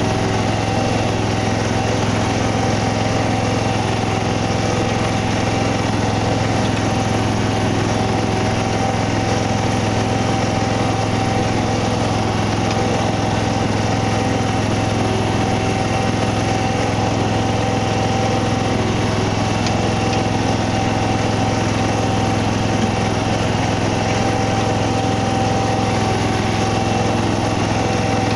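Engine of a Smithco riding bunker rake running steadily as the machine rakes a sand bunker, a constant low hum with a steady higher tone over it.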